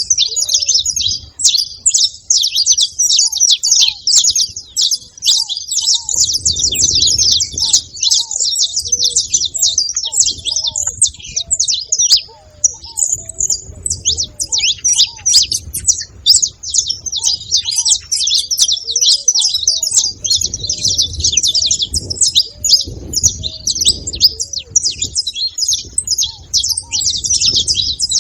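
Saffron finch (canário-da-terra) singing on and on, a fast jumble of high chirping notes with a brief pause about twelve seconds in.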